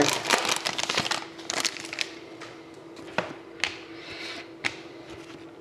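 Foil trading-card pack wrapper crinkling as it is torn open, then about five separate sharp ticks as the cards are handled and flicked through.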